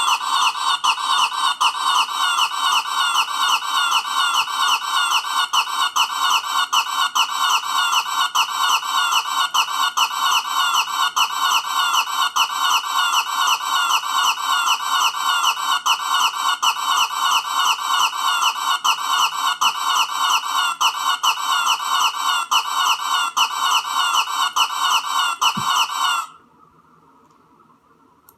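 A cartoon mailbox's funny sound effect: a rapid, warbling, cluck-like squawk repeated over and over without a break. It cuts off about 26 seconds in and starts again right at the end.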